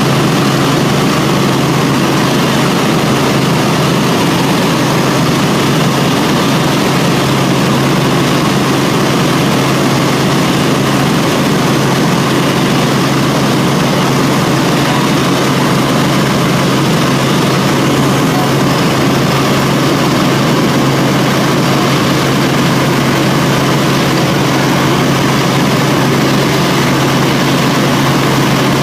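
Helicopter engine and rotor running steadily in flight, heard from inside the cabin as a loud, even drone with a constant low hum.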